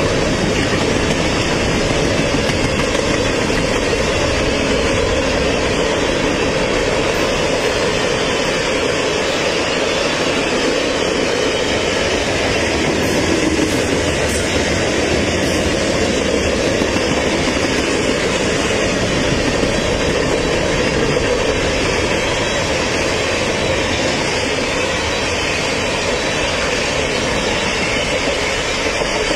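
Freight train cars rolling steadily past at close range, with a continuous loud rumble and rush of wheels on rail.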